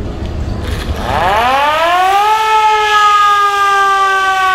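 Old railway emergency siren sounded. About a second in it winds up, rising quickly in pitch, then holds a steady tone that sags slightly.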